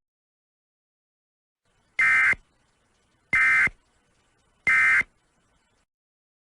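Emergency Alert System end-of-message (EOM) data bursts: three short, identical buzzy digital screeches about a second and a half apart, signalling that the alert is over.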